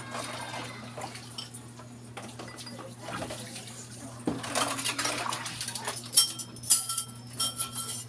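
Dishes being washed by hand: scrubbing and handling, then ceramic plates clinking against each other several times in the last two seconds, each clink ringing briefly. A steady low hum runs underneath.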